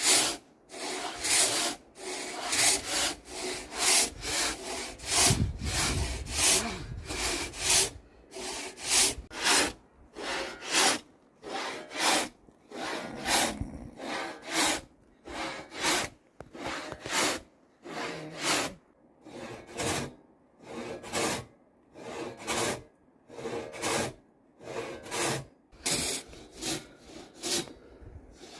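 Traditional Nepalese hand saw cutting through timber, its teeth rasping in an even rhythm of back-and-forth strokes, a little under two a second. A brief low rumble comes in about five seconds in.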